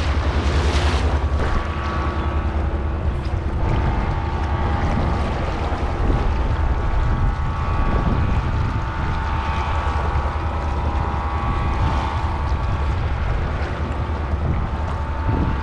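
Wind buffeting the microphone of a body-worn action camera over flowing river water, with a steady mechanical hum from construction machinery running underneath.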